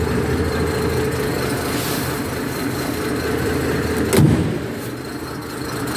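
1934 Rolls-Royce 20/25's straight-six engine idling steadily, with a single thump about four seconds in.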